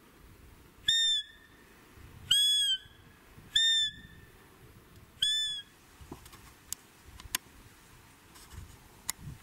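Belblatt roe deer call blown four times: short, high-pitched squeaky bleats, each under half a second and about a second and a half apart, imitating a roe doe's call to lure deer in. A few faint sharp clicks follow.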